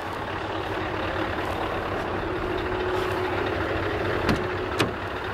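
Heavy truck's diesel engine running close by as the tractor unit pulls up, a steady rumble with a constant hum that grows a little louder. Two short clicks come near the end.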